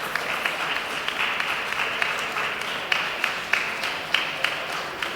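Audience applauding: many people clapping at once in a dense, uneven patter, with a few nearer, sharper claps standing out.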